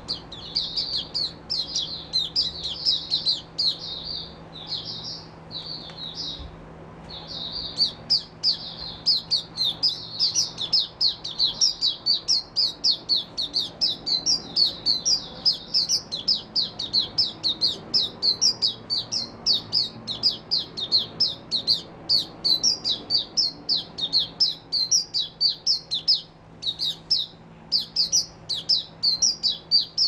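Caged white-eye (mata puteh) singing a long, fast run of high twittering notes, with a brief pause about six seconds in.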